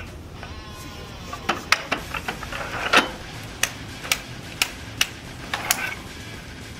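Nuobell adjustable dumbbell clicking and knocking as it is handled in its cradle and lifted out: a string of sharp, irregular clicks, the loudest about three seconds in.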